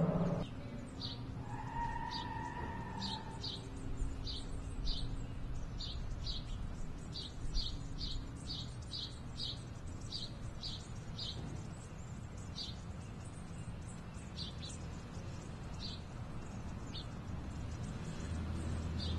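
A small bird chirping repeatedly, short high chirps at uneven intervals, over a low, steady outdoor background.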